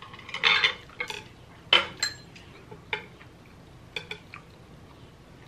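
Wooden chopsticks clicking and clattering against a white ceramic serving tray as they are picked up and used to reach for a piece of sushi: a string of sharp clicks, the loudest just under two seconds in.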